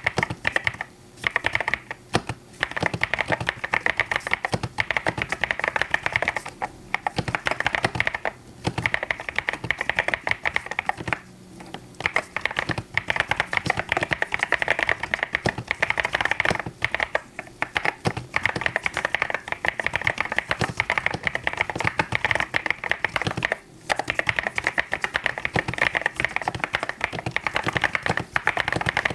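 Mechanical keyboard being typed on fast and steadily, a dense run of key clicks broken by brief pauses several times.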